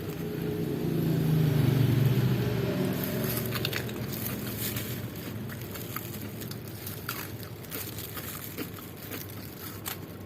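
A motor vehicle's engine passes by, swelling to its loudest about two seconds in and fading away, followed by small clicks and crunches of someone eating.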